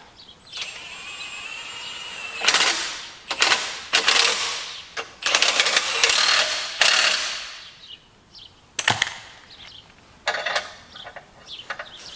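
A power wrench on the dozer's blade-ball mounting bolts, run in a string of short, harsh bursts with a sharp click in between.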